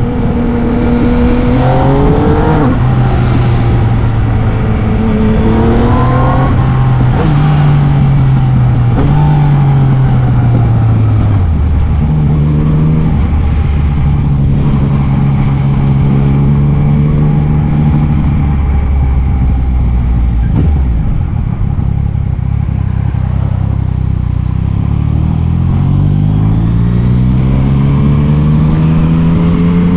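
Yamaha MT-09's three-cylinder engine under way, its revs rising and dropping back several times as the rider accelerates, shifts and eases off, with a long steady climb in revs in the last several seconds.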